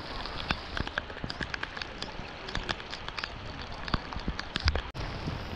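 Heavy rain falling steadily, with many sharp drops striking close by. There is a brief dropout near the end.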